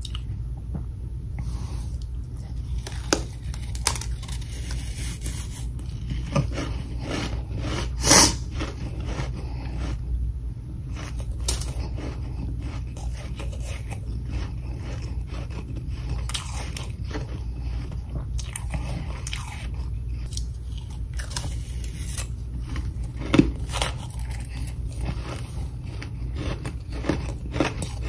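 Biting and chewing mouthfuls of powdery freezer frost (humidifier freezer frost) from a metal spoon: irregular crisp crunches, the loudest about eight seconds in and another near the 23-second mark. A steady low hum runs underneath.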